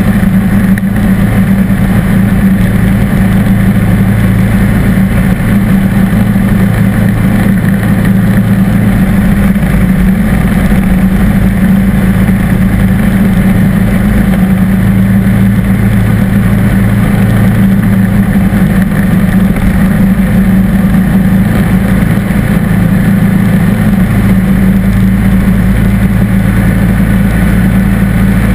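John Deere D140 lawn tractor's V-twin engine running steadily under load, driving a front-mounted snow thrower that is blowing snow out of its chute. The engine note holds an even, unchanging hum throughout.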